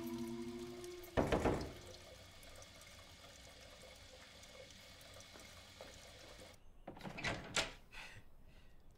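A held music note ends, then a single heavy thud with a short ring about a second in, and a few short sharp knocks near the end.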